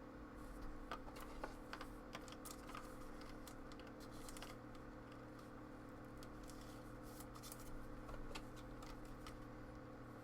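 Faint clicks and short rustles of trading cards being handled and slid over one another as a pack is gone through, with a steady low hum underneath.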